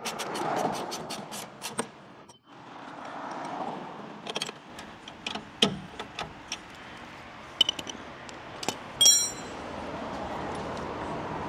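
Steel wrench clinking and scraping on a rusty shock-absorber mounting bolt and bracket as the bolt is worked loose by hand, with scattered sharp metal clicks and one ringing clink late on.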